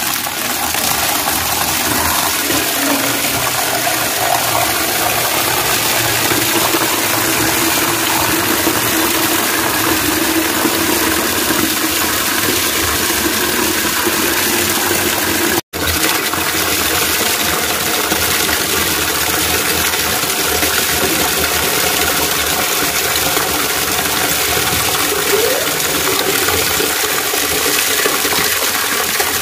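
A strong stream of water pouring and splashing into a plastic tub as it fills, a steady rushing noise that drops out for an instant about halfway through.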